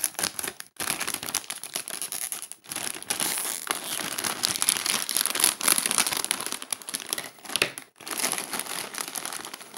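Plastic potato-chip bag crinkling as it is cut open with scissors and handled, in several stretches with a few short breaks between.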